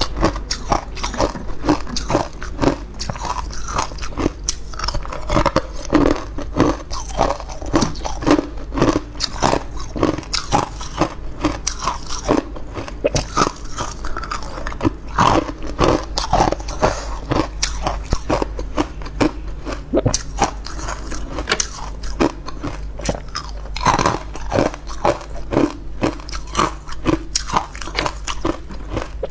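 Close-miked biting and crunching of frozen green-topped ice cubes, many crisp crunches in quick succession as the ice is chewed.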